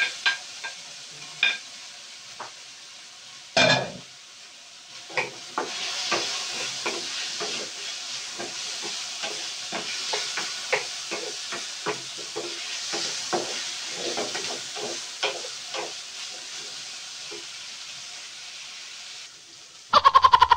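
Ground meat and chopped tomatoes sizzling in a frying pan, a wooden spatula stirring with frequent clacks and scrapes against the pan. A louder knock comes a few seconds in, and a quick rattling run of strokes just before the end.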